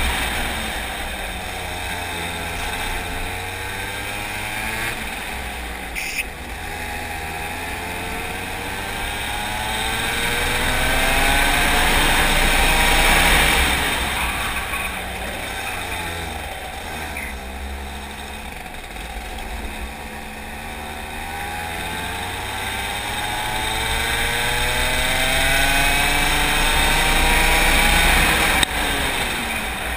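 Go-kart engine at racing speed, heard from on board: its pitch climbs for several seconds along the straights, then drops as it slows for the corners, twice over, loudest at the top of each climb.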